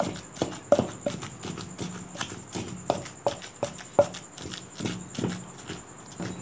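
Wooden pestle pounding a soft mash of cooked chana dal and meat in a stone mortar: irregular dull knocks against the stone, about two a second.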